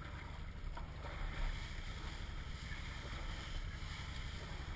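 A quad bike's (ATV's) engine running steadily at low revs while the machine sits in muddy water, with water sloshing around it.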